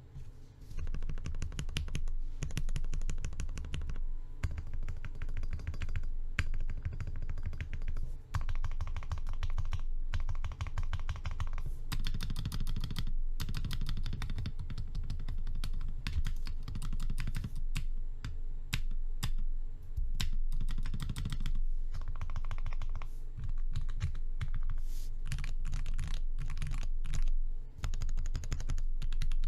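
Tofu60 mechanical keyboard with lubed Gateron Yellow linear switches on a brass plate in an aluminium case, keys pressed in quick succession: a dense, continuous run of keystroke clacks starting about a second in.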